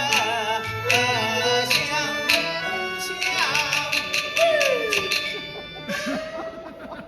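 Hebei Bangzi opera band music: a wavering melody line over rapid, sharp clacks of percussion. About four and a half seconds in, one loud note slides downward. About six seconds in there is a sharp hit, and the music then fades.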